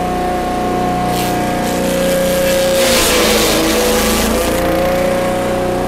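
Forage chopper driven by a small engine, running steadily. About three seconds in, the engine note sags under load as grass is fed in, with a rush of shredding noise, then picks back up.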